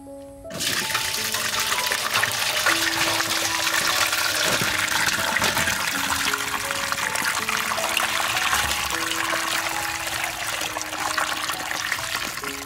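Water running from a hose into a large metal basin of tomatoes, splashing steadily on the fruit and the water; it starts suddenly about half a second in.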